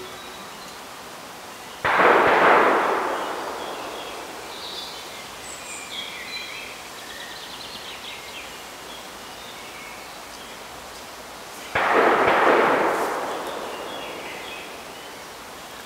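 Two sudden loud rushes of noise about ten seconds apart, each fading away over a couple of seconds, over quiet outdoor ambience with faint bird chirps.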